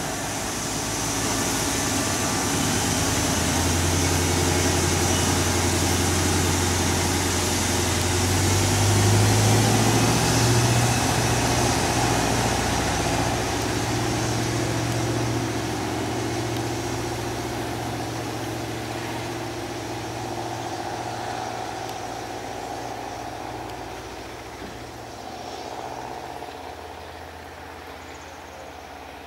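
Diesel engines of a Trenitalia Minuetto regional multiple unit running under load as the train pulls away. The pitch steps up about nine seconds in, where it is loudest, then the sound fades steadily as the train draws off.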